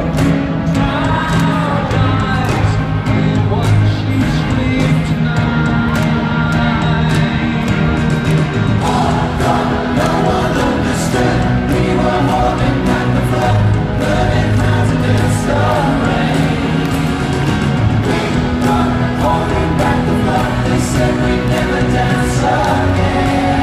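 Live pop band performance played through an arena PA: male voices singing together over band accompaniment, steady and loud.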